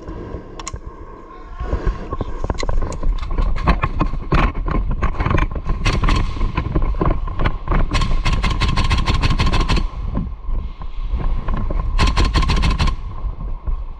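Airsoft guns firing, with single shots scattered through and two rapid bursts, about eight and twelve seconds in, over a constant heavy low rumble.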